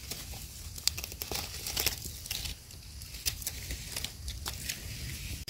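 Dry leaf litter crackling and rustling under hands and a small knife as a mushroom is dug out of the forest floor: irregular sharp crackles.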